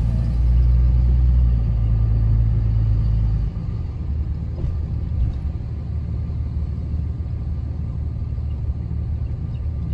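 A 2005 Dodge Ram 2500's 5.9-litre Cummins diesel and road rumble, heard inside the cab while the truck rolls slowly. The engine's low drone is steady, then drops and turns rougher about three and a half seconds in.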